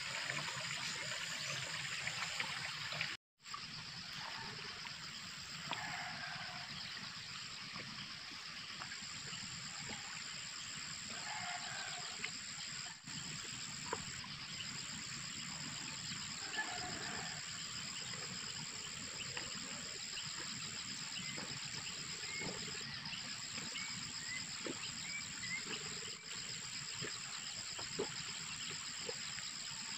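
Field ambience of a steady, high-pitched insect chorus with faint, scattered animal calls. The sound drops out for a moment about three seconds in.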